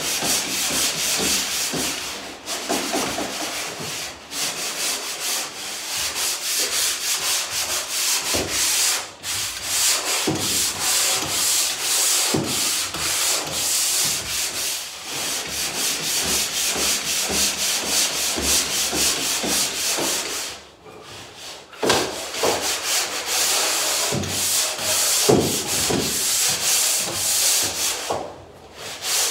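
Drywall pole sander rubbing back and forth over a wall and closet doors in quick, even strokes. It stops about twenty seconds in and starts again a second or two later.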